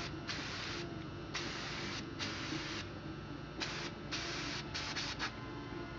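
Aerosol can of Uni foam filter oil spraying in a series of short hisses, about seven bursts of half a second or less, coming quicker together near the end, as it lightly coats a foam air filter.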